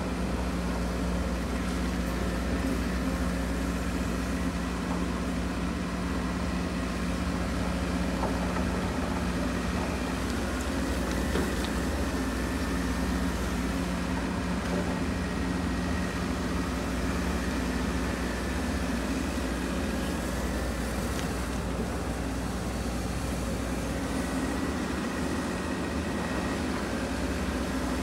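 Case CX210D excavator's diesel engine running steadily under working load as the boom and tiltrotator bucket move, with a steady drone and a faint high whine over it.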